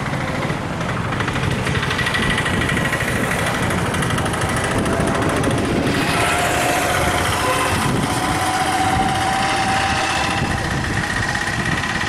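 An engine running steadily, with a faint whine that drifts slightly in pitch.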